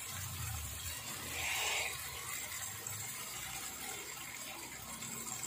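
Tamarind water poured from a cup into a wok of sautéed green chilies and spice paste, the liquid splashing steadily into the pan, a little louder a moment or two in.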